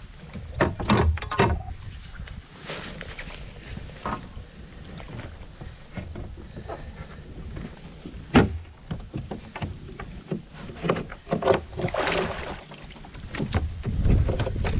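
Knocks, bumps and scrapes on a plastic sea kayak as a person climbs into the cockpit from the shore and handles a wooden paddle across the deck, picked up through the hull. Wind rumbles on the microphone underneath. A sharp knock about eight seconds in is the loudest.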